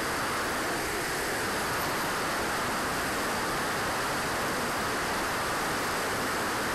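Steady rushing noise from a camera aboard an RC jet in flight: airflow over the airframe mixed with its Swiwin SW60 turbine running at a constant setting.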